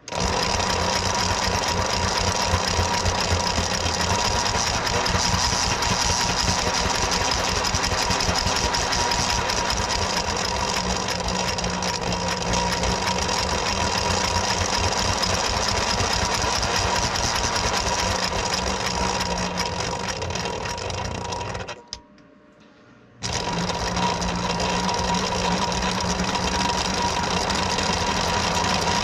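An O scale model steam locomotive running in place on test rollers: its motor and gears give a steady mechanical whir with a fast chatter and a high whine as the driving wheels spin on the rollers. About 21 seconds in the running winds down and stops for a little over a second, then starts again.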